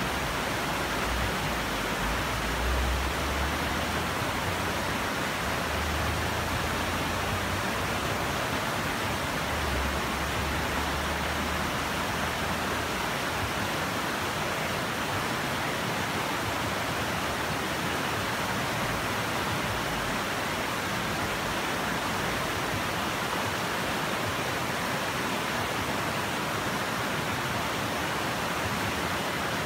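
Otún River rapids: shallow water rushing steadily over rocks, an even, unbroken roar. A broken low rumble sits underneath for the first twelve seconds or so.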